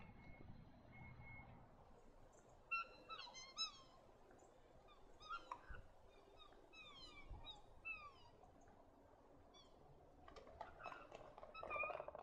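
Black swans calling: a run of short, high, downward-sliding bugling whistles, several overlapping, then a few lower, harsher calls near the end.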